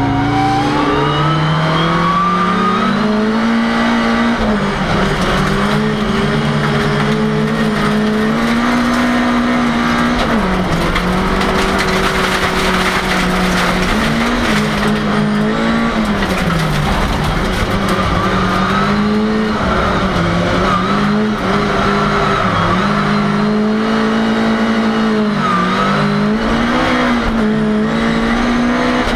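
Ford Cortina race car's engine heard from inside the car while it is driven hard, its revs climbing and dropping several times as the driver works through the gears.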